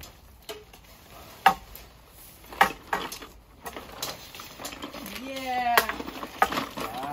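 A Coleman Sundome tent being handled: its nylon fabric rustles as it is lifted and spread out, with several sharp clacks and knocks, the loudest about a second and a half in. A short falling, voice-like sound comes near the end.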